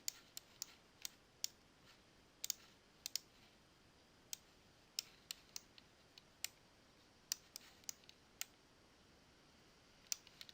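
Computer mouse clicks at irregular intervals, single and in quick pairs, with a faint background hiss between them.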